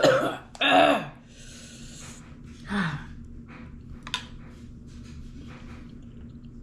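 A person gasping and breathing hard through the mouth from the burn of ghost pepper soup: two loud gasps near the start, a long breathy exhale, then a short falling groan about three seconds in. A steady faint hum runs underneath.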